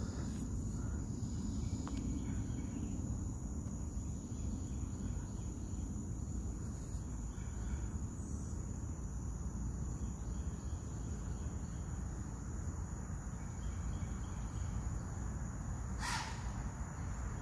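Steady high-pitched insect chorus over a low, even rumble. A crow caws once near the end.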